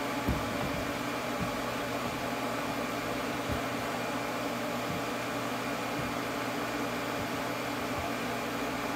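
TIG welder's water cooler running with a steady hum of its pump and fan, a constant pitched drone over an even whir. A few light knocks come through, the first about a second and a half in.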